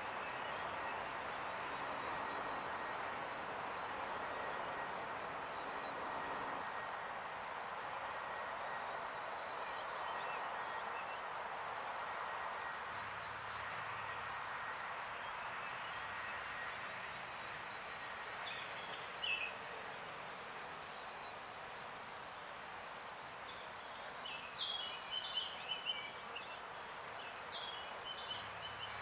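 A steady, high, rapidly pulsing insect trill over a constant hiss of background noise. A few short bird chirps come in about two-thirds of the way through and again near the end.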